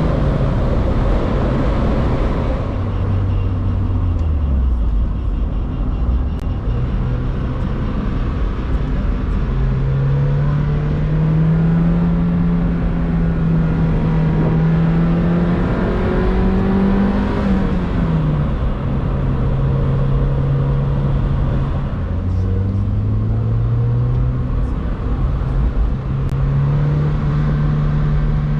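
Mazda MX-5 Miata NB four-cylinder engine running while the car is driven, its pitch climbing under acceleration and dropping back at gear changes several times, over steady road rumble.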